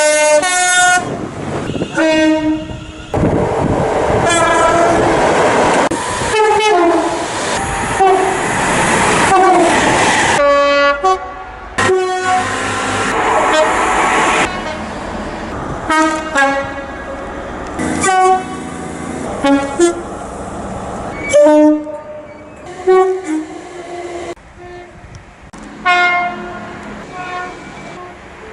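A quick succession of British train horns from different trains, many of them two-tone horns, each sounding in short blasts and cut one after another. A passing train's rumble runs under the horns for several seconds in the first half.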